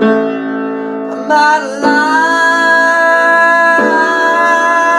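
Acoustic piano chords with a man's voice singing one long held note over them, coming in about a second and a half in; fresh chords are struck a few times through it.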